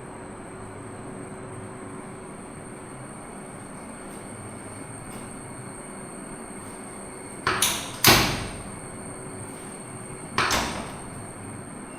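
Three short, sharp thuds of chiropractic adjustment thrusts, two close together about seven and a half seconds in and a third two seconds later, each dying away quickly, over a steady room hiss.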